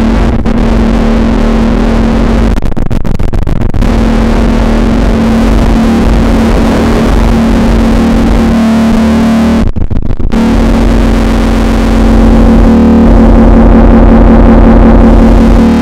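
SOMA Lyra-8 analogue drone synthesizer playing a dense, noisy drone over a steady low tone. Twice the upper hiss drops out briefly, about three seconds in and again near ten seconds. About twelve seconds in the drone swells louder and turns more clearly pitched.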